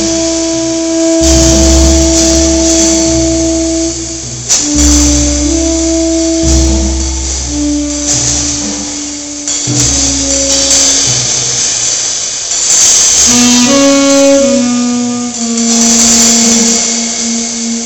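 Tenor saxophone playing long held notes that step from pitch to pitch, with a quick run of short notes about two-thirds of the way through. A drum kit plays under it, cymbals shimmering throughout and low drums rumbling on and off, in a free jazz duo improvisation.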